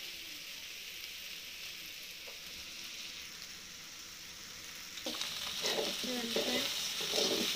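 Chopped okra sizzling in a little oil in an aluminium kadai while it is stirred with a spatula. The sizzle is a steady high hiss that grows louder about five seconds in as the pieces are turned.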